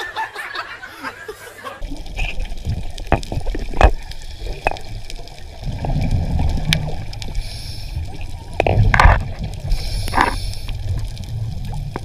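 Water noise heard on an underwater camera: a low, rumbling slosh and gurgle with scattered sharp clicks, and two louder bursts about a second apart near the end. For the first two seconds, crowd chatter in a busy hall.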